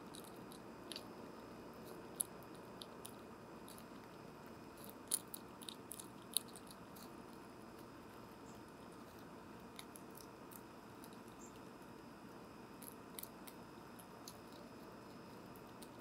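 Fox squirrel eating seed at a plastic bird feeder, close-miked on the feeder. Scattered sharp clicks and crunches of seeds being picked up and cracked, the loudest cluster about five to six and a half seconds in, over a steady faint hiss.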